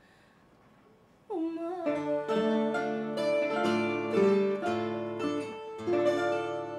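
Fado accompaniment on Portuguese guitar with lower guitar notes beneath: after about a second of near silence a sliding note comes in, then a quick run of ringing plucked notes.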